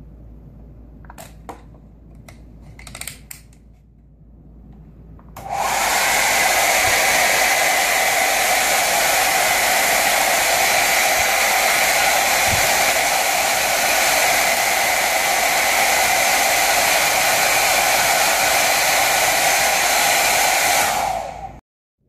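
Hair dryer switched on about five seconds in and running steadily, blowing through a 3D-printed butterfly-valve coupler on its nozzle, then switched off just before the end. A few light handling clicks come before it starts.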